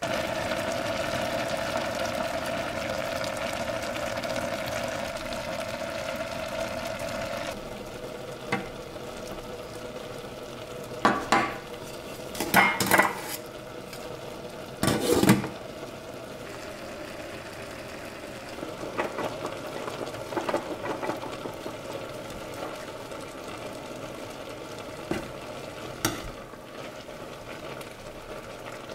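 Food sizzling in a pan, with a louder steady noise for the first seven or so seconds that cuts off suddenly, and several sharp clatters of utensils and pans.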